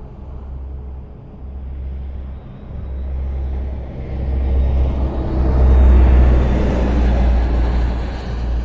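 Highway traffic: a steady low rumble of cars on the road, with one vehicle's tyre and engine noise swelling to a peak about six seconds in as it passes, then easing off.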